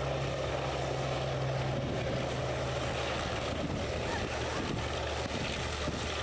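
Hawker Sea Fury's Bristol Centaurus radial piston engine running as the fighter taxis close by, a steady low drone that settles to a lower pitch about three seconds in.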